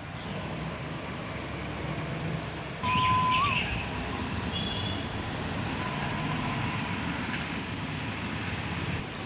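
Outdoor town ambience: a steady low rumble of road traffic. About three seconds in, a brief high steady tone rises slightly at its end.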